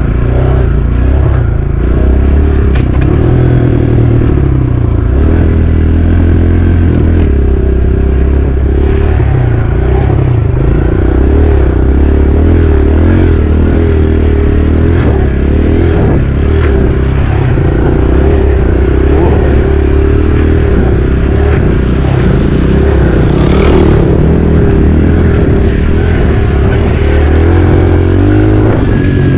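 Dirt bike engine running while riding on a trail, its pitch rising and falling with the throttle through the whole stretch.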